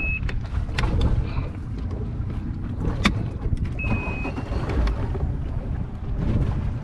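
Motorboat running under way through choppy water: a steady low engine rumble with wind noise, several sharp knocks of the hull on the waves, and a brief high beep about four seconds in.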